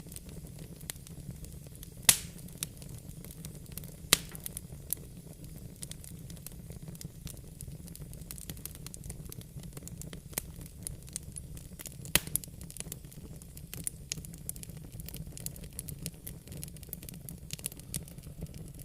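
Fire in a fireplace crackling, with frequent small irregular pops and a few louder sharp snaps, about 2 and 4 seconds in and near the end of the first two-thirds, over a steady low rumble.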